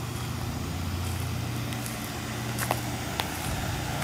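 York central air conditioner's outdoor condenser unit running with a steady low hum. Two short sharp clicks about half a second apart come near the end.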